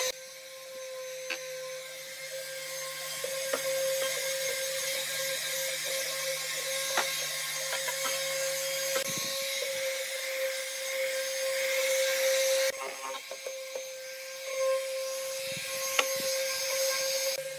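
Corded electric palm sander running with a steady whine, its pad rubbing over pallet-wood slats with a rough hiss and a few small knocks as it is moved around.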